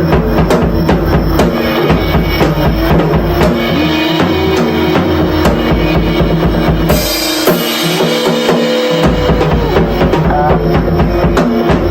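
Drum kit played in a fast solo, with dense bass drum and snare hits over steady held backing tones. About seven seconds in, the low drums drop out for about two seconds.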